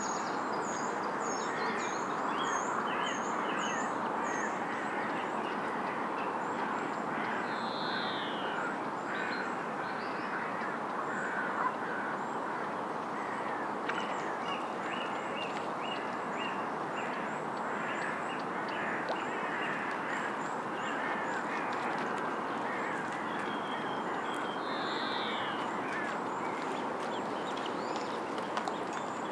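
Ducks quacking amid a steady hubbub of waterfowl calls at the lake, with small birds chirping and singing above. There is a run of repeated high chirps at the start, and a short falling high call comes twice.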